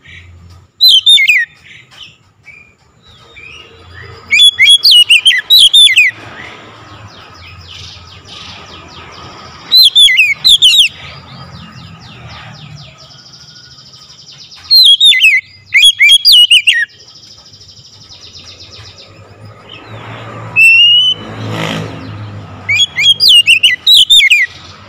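Oriental magpie-robin singing loud in about six short phrases of sharp whistled notes, most sliding down in pitch, with pauses of a few seconds between them.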